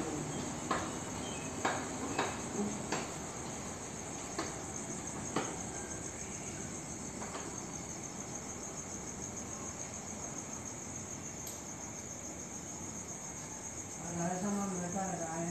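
Crickets chirping, a steady high-pitched trill. A few sharp clicks sound in the first half, and a person's voice murmurs briefly near the end.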